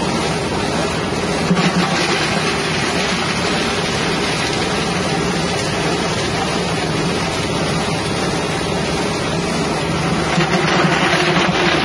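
Engine-driven galangal and spice grinding machine running steadily, its 6.5 hp engine and cutting drum grinding galangal rhizomes fed from the hopper. The din grows a little louder near the end.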